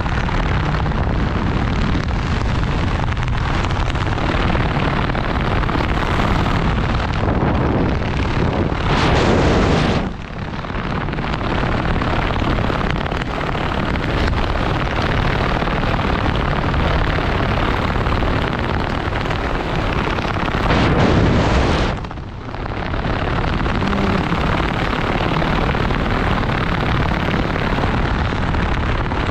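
Steady rushing wind buffeting a helmet camera's microphone during a parachute descent under an open canopy. It swells briefly about nine seconds in and again about twenty-one seconds in, and drops for a moment after each swell.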